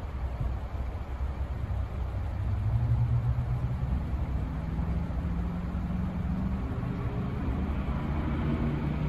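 Distant diesel freight locomotive approaching, its engine a low rumble with a steady hum that grows louder about two and a half seconds in and rises slightly in pitch later.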